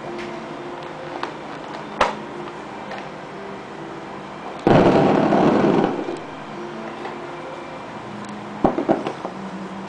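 Paintballs poured out of a Vlocity Jr. paintball loader into a cardboard shoebox: a loud rush of many small impacts lasting about a second. A few sharp clicks of the loader being handled come before it and twice near the end.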